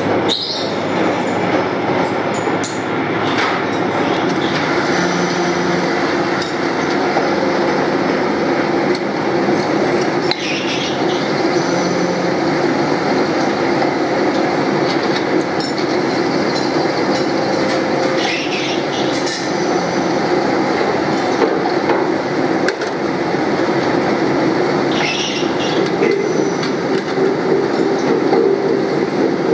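Pillar drill boring through metal motorcycle front sprockets, against a steady clattering din of workshop machinery, with a short high screech every seven or eight seconds.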